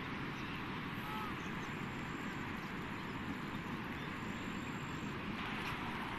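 Floodwater rushing steadily across flooded fields, a constant noisy rush with no distinct events.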